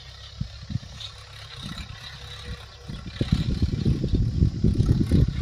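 Mahindra tractor's diesel engine running, a low uneven rumble that grows louder about three seconds in.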